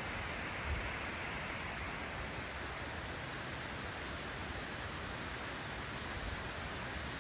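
A waterfall: a steady, even rush of falling water, with one brief low thump about a second in.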